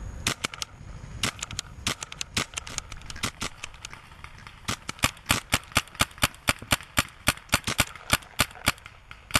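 Paintball markers firing: scattered shots in quick pairs and triples, then from about five seconds in a steady string of louder shots, about three a second.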